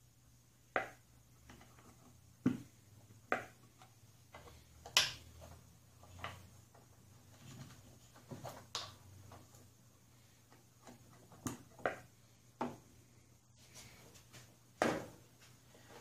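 About a dozen irregular light clicks and knocks, the loudest about five seconds in, from hands oiling a mower engine's starter with a pump oil can and working around the starter gear.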